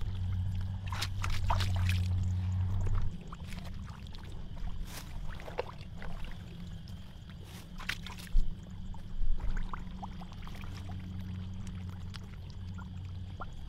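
Hands digging through wet pond mud: squelching, sucking mud and small splashes and drips of water, with two louder wet slaps a little past the middle. A steady low hum runs underneath for the first three seconds and comes back near the end.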